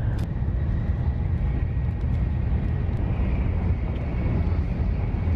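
Steady low rumble of a Shinkansen bullet train's passenger cabin while the train is running.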